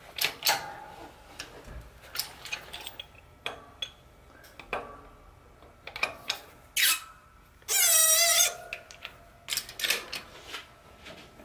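A new front wheel bearing and steering knuckle being pressed over a 1998 Ford Contour's hub in a hydraulic shop press: a string of sharp metallic clicks and creaks, and about eight seconds in a loud metal squeal lasting under a second as the parts are forced together.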